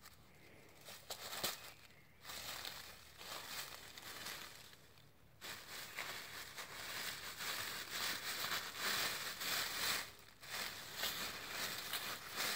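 A badger rooting and digging through dry fallen leaves: a crackling, crunching rustle of leaf litter, quieter for the first couple of seconds and louder from about halfway on, with short pauses.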